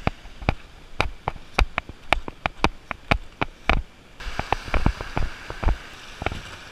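Footsteps on a sand and pebble beach, a sharp crunching click with each step, about two or three a second. A faint steady hiss joins about four seconds in.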